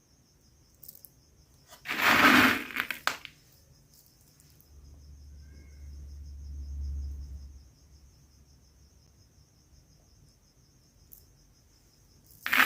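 Insect, likely a cricket, trilling steadily in a high, pulsing tone. Two loud, short bursts of noise, about a second each, cut across it: one about two seconds in and one at the end. A low rumble sits in the middle.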